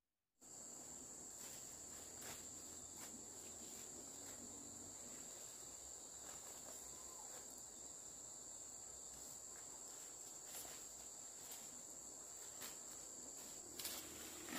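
Insects chirring in a steady high-pitched drone that starts abruptly about half a second in, with a few soft clicks and rustles near the end.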